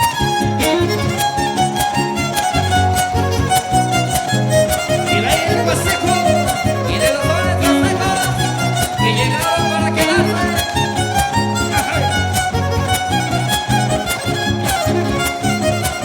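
Son huasteco (huapango) played instrumentally: a violin carries a sliding, ornamented melody over the steady strummed rhythm of the jarana huasteca and huapanguera.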